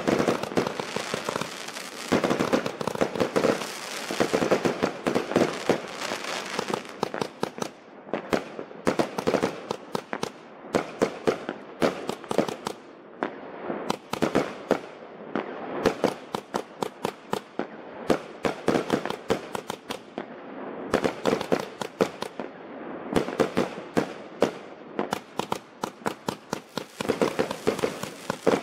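A Lesli Bloodhound 25 mm compound firework cake firing a fast, unbroken barrage: shells launching and bursting in a dense run of sharp bangs, one on top of the next.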